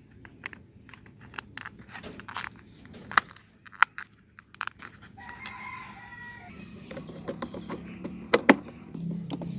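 A rooster crows once, about halfway through, a single held call lasting about a second, among scattered sharp clicks and taps. A low hum comes in near the end.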